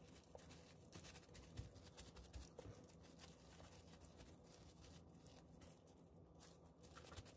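Near silence, with only faint soft rustles and light taps of plastic-gloved hands spreading and pressing black rice onto a sheet of gim.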